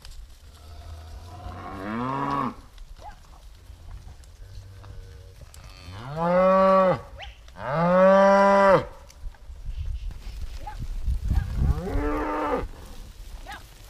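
Cattle mooing: four long moos, the two in the middle loudest and close together, each rising then falling in pitch.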